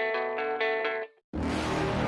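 Electronic hip-hop track ending: a plucked, guitar-like melody that stops about a second in, then after a brief gap a short noisy burst that fades away.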